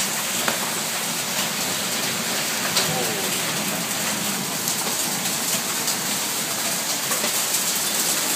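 Hail and rain pelting down in a steady dense hiss, with scattered sharp clicks of hailstones striking.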